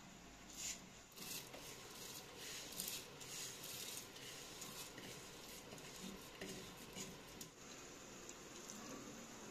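Wooden spoon scraping soaked rice out of a bowl into a pot of milk, a faint string of light scrapes, taps and pattering grains that stops about seven and a half seconds in.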